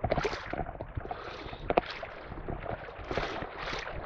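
Shallow sea water sloshing and splashing around legs wading through it, swelling with each stride, with a few short knocks and some wind on the microphone.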